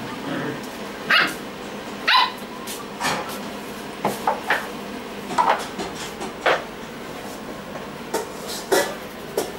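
Five-week-old puppies yapping in short, high barks, about a dozen spread through the stretch, some in quick pairs.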